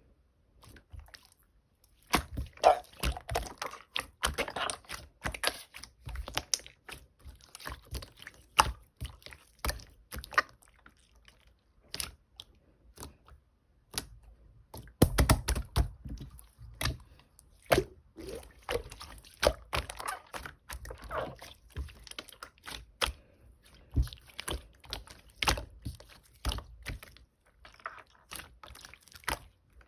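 Strawberry-jam slime being squished, poked and stretched by hand, making wet, sticky clicks and squelches in quick, irregular clusters, with short pauses between handfuls.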